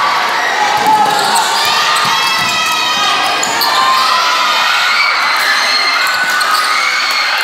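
Game crowd in a gym shouting and cheering, many voices at once, over a ball bouncing on the court floor.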